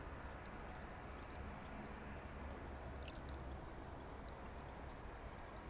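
Bubble mixture being poured from a small pot into a plastic funnel: a faint trickle with a few small ticks, over a low steady rumble.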